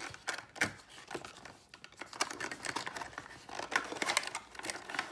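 A small cardboard toy box being opened by hand: irregular rustling, scraping and clicking of card as the end flap is pulled open and the contents are worked loose.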